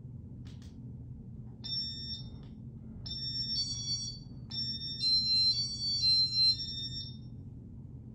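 Casablanca Intelli-Touch ceiling fan control sounding a run of high electronic beeps in several changing pitches, after two soft clicks near the start, over a steady low hum.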